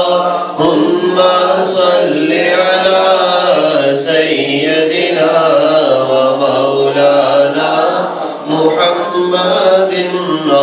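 A man chanting a naat, devotional singing in praise of the Prophet, into a microphone, in long drawn-out melodic lines with a steady low drone beneath.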